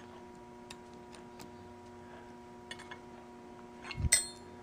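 Light clicks and taps of small metal screws and tools being handled at an aluminium carburetor body, with a louder sharp metallic clink and brief ring about four seconds in. A faint steady hum runs underneath.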